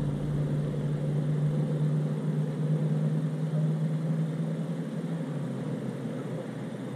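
A low, steady mechanical hum like a distant motor, which drops away about five seconds in.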